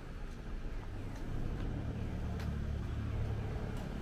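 Low, steady engine-like hum that grows a little louder about a second in, with a few faint clicks.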